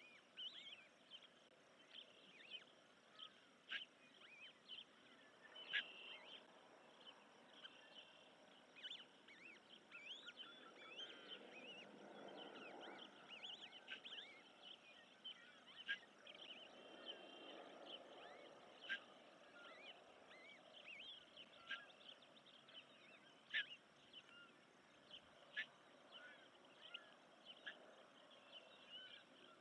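Osprey chicks peeping in many short, thin, high chirps while the adult feeds them, the chirps coming irregularly several times a second at times. A faint low rushing swells twice in the middle.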